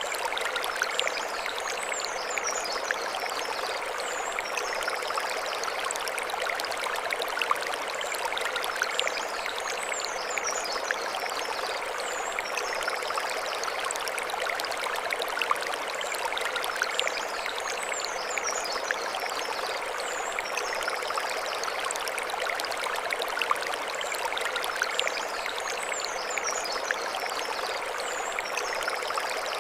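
Mountain stream flowing over stones: a steady rushing and splashing of water. A short burst of high chirps recurs about every eight seconds above the water.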